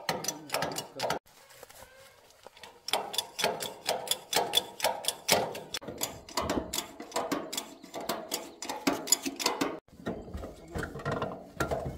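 A rapid, uneven run of sharp mechanical clicks and taps, several a second, pausing briefly about a second in and again near the end.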